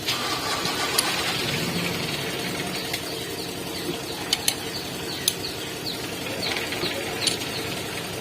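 Scattered sharp metallic clicks and clinks of hand tools and engine parts being handled during assembly of a Mitsubishi L300 diesel engine, over a steady background hum.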